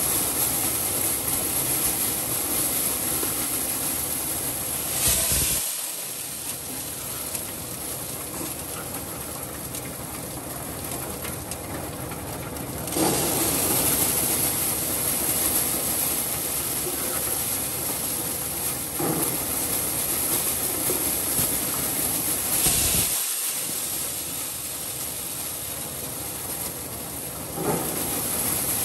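Tractor-driven maize sheller running steadily, with shelled corn kernels pouring and rattling into a steel basin as a dense, even rattle and hiss.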